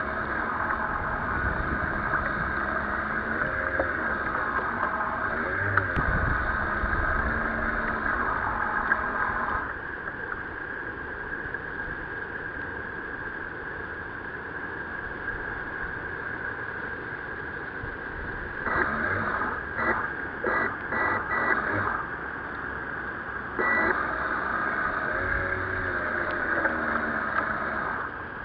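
Water and wind noise on a radio-controlled model sailboat under way, with a steady whine over it. The whine drops out about a third of the way in, returns in several short on-off bursts later, then runs steadily again near the end.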